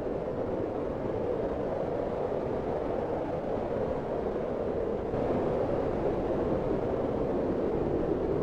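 Snowstorm wind blowing in a steady, even roar, a little louder from about five seconds in.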